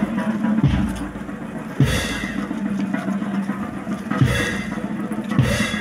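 Slow funeral march music: heavy drum beats at a slow, even pace, about one every second or so, over a sustained low note.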